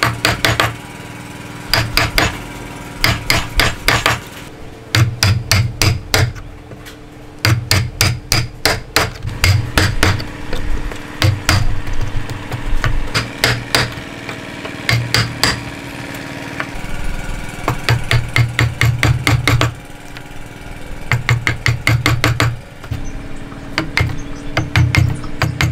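A chisel being struck in quick runs of blows, about six a second with short pauses between runs, chopping a mortise into a wooden beam.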